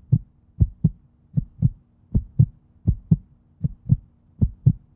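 Heartbeat sound effect: a steady lub-dub of paired low thumps, a little over one beat a second, over a faint steady hum.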